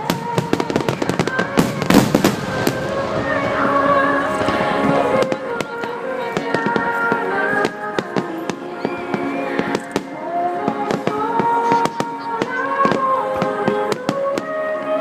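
Fireworks going off, a rapid run of sharp bangs and crackles with the thickest cluster about two seconds in and scattered bursts after, over a song playing steadily.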